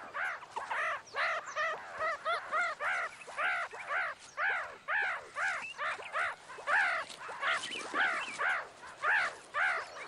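Meerkat pup calling over and over: a quick run of short rising-and-falling squeaky calls, about two or three a second.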